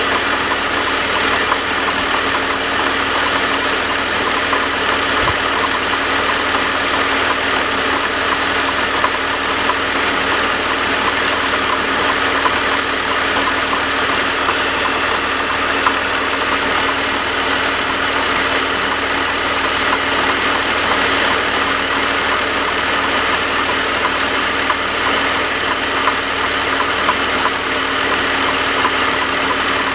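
BMW E46 330i's inline-six idling with a steady clanking clatter, the galloping noise that appears only at idle and goes away on acceleration. It is still there after the primary timing chain tensioner was replaced.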